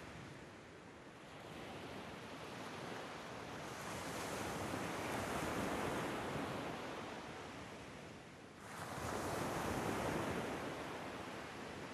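Ocean waves washing ashore, with two surges that swell and fade, the second rising suddenly about two-thirds of the way in.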